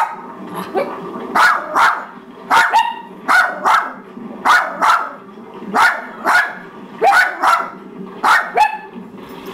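Dog barking over and over in quick pairs of sharp barks, about one pair a second.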